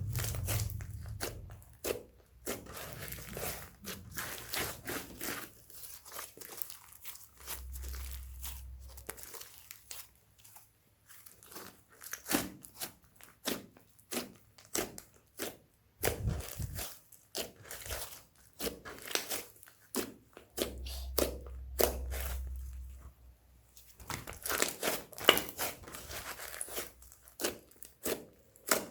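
Slime being squished, pressed and stretched by hand, making dense, irregular sticky clicks and pops. There is a short lull about ten seconds in.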